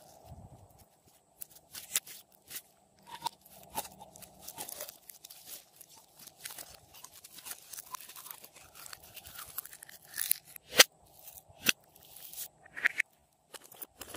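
Glossy slime handled by hand, stretched, squeezed and pushed into a small plastic bottle: a string of sticky crackles, clicks and air pops, with two sharp loud clicks about two-thirds of the way through.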